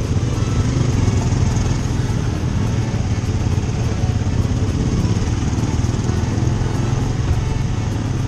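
Motorcycle engine running steadily at low speed in slow traffic, heard from the rider's seat.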